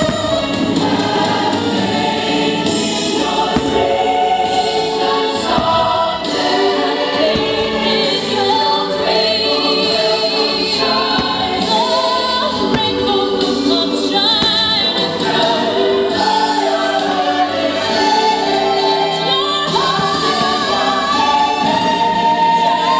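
Fireworks-show soundtrack music led by a choir singing long, wavering held notes.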